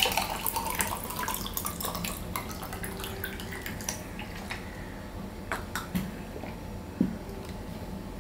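Water poured from a plastic bottle into a drinking glass, followed by a few sharp knocks and clinks as the bottle and glass are set down on the table.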